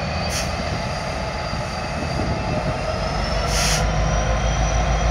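Ex-Conrail SD60M diesel locomotive running as it moves the track geometry train slowly through the yard, with a thin, steady, high wheel squeal over the engine's rumble. The rumble grows louder about three and a half seconds in, and two short hisses come at about the start and near the end.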